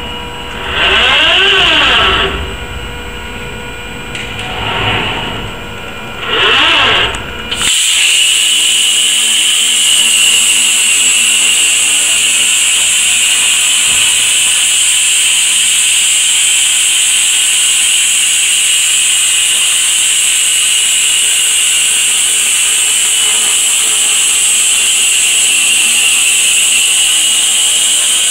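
A few short rising-and-falling machine whines over a low rumble, then, about eight seconds in, a plasma torch's arc starts abruptly and cuts through a steel pipe with a loud, steady high-pitched hiss.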